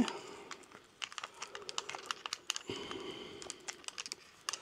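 3D scanner parts and a cable being handled and fitted together: an irregular run of small plastic clicks, taps and rustles.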